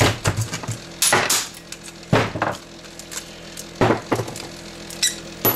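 Claw hammer striking a plastic-and-ferrite transformer part on a wooden workbench, with several sharp blows about a second apart to crack the ferrite core loose. Broken pieces clink in between.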